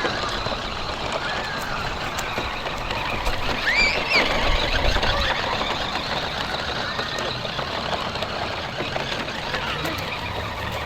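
Battery-powered New Bright RC pickup truck running: a steady, noisy whir of its electric motor and gears with tyre noise over the ground. A brief high squeak comes about four seconds in.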